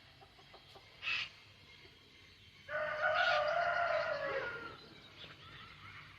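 Rooster crowing once: a long, held crow starting about three seconds in that falls in pitch at its end, after a short sharp call about a second in.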